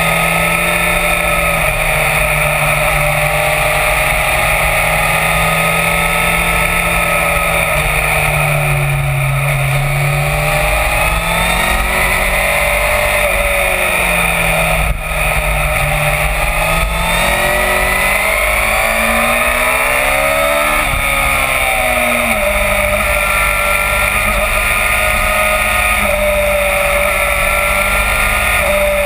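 Sport motorcycle's inline-four engine under way, its note rising and falling as the throttle opens and closes through a run of curves, with wind rushing over the microphone. About two-thirds of the way through, the engine note drops away and then climbs again, as when slowing into a bend and accelerating out.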